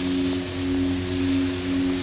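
HVAC chiller running: a steady machine hum made of several fixed low tones, with a constant hiss of air above it.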